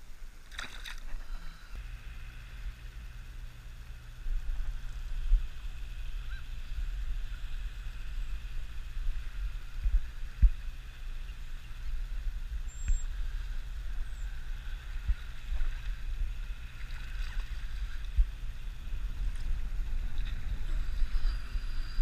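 Wind buffeting an action camera's microphone: a steady low rumble with gusty peaks, and a brief sharp sound about a second in.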